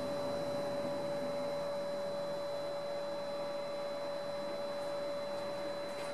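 A steady electrical hum: one constant mid-pitched tone with a fainter high tone over a soft hiss.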